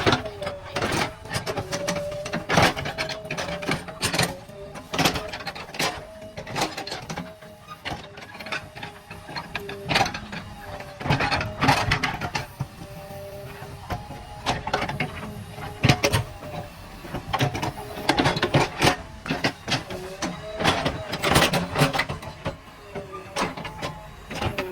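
JCB backhoe loader at work: its engine note rises and falls under load, with frequent sharp metallic clanks and knocks.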